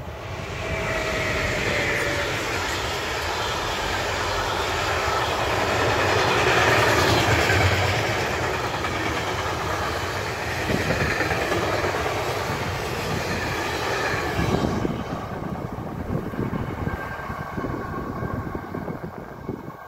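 Freight train hauled by an ÖBB electric locomotive, its stanchion flat wagons rolling past close by: a dense rush of wheel-on-rail noise with clattering wheels, loudest about seven seconds in, then fading after about fifteen seconds as the last wagons go by.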